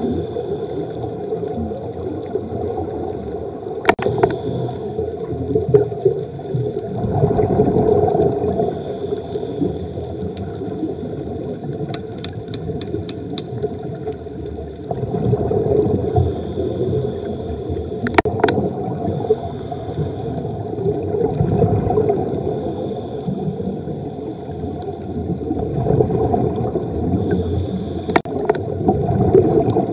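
Underwater scuba breathing: a diver's exhaled bubbles gurgle and rush in swells every several seconds. A few sharp clicks come through between the swells.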